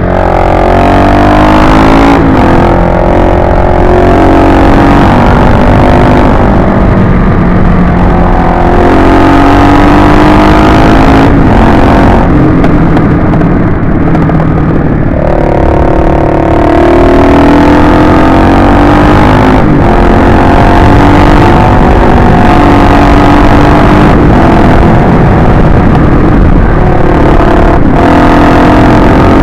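Kawasaki KLX250S single-cylinder four-stroke engine under way, its revs climbing and falling, with brief breaks at gear changes about every eight to nine seconds, over a steady low rush of wind on a helmet-mounted microphone.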